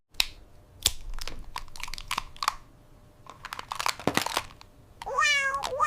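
Scattered clicks and crinkles of small plastic toy pieces being handled and fitted together, then a cat meows about five seconds in.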